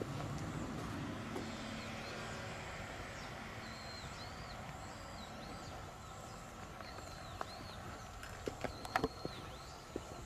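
Footsteps on a stone path, with a cluster of sharp clacks about nine seconds in, over outdoor ambience. A bird repeats short swooping chirps through the middle of the stretch.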